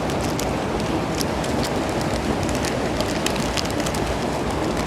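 Steady rushing of a waterfall, with scattered light clicks over it.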